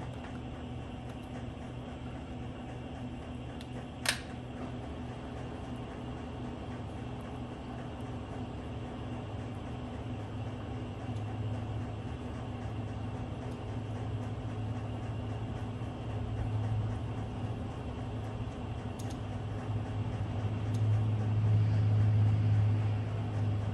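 Handheld hair dryer blowing with a steady motor hum, growing louder in the second half, heating a car badge's adhesive to loosen it. A single sharp click about four seconds in.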